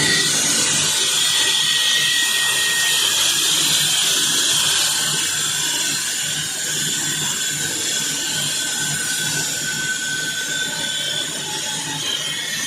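Floor saw cutting into a concrete floor: a steady, loud grinding whine of the blade in the cut with a held high tone over the running motor, easing slightly about five seconds in.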